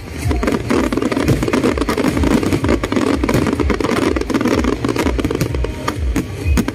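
Aerial fireworks barrage: many shells bursting in quick, overlapping succession, a continuous run of bangs and crackling.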